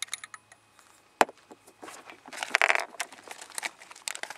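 Handling noise while loading a black-powder Howdah pistol: scattered light clicks, a single sharp knock about a second in, and a short dense rustle a little after two seconds as gear is picked up from a table.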